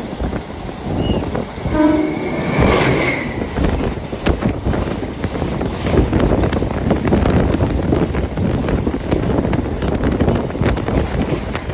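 A train sounds a short horn blast about two seconds in, then runs past close by with steady running noise and wheels clattering on the rail joints.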